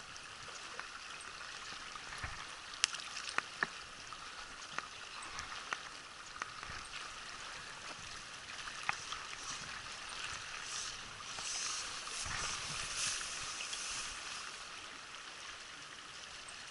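Mountain river water running steadily over rocks, with scattered sharp little clicks and a louder rush of water about two-thirds of the way through.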